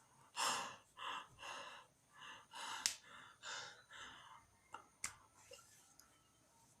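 A person taking a run of short, gasping breaths, about eight in four seconds and growing fainter, as if building up to a sneeze that won't come. Two sharp clicks sound among them.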